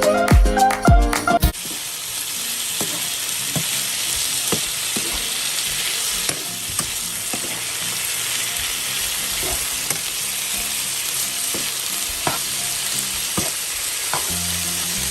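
Food frying in a hot pan: a steady sizzling hiss with occasional light clicks of a utensil stirring.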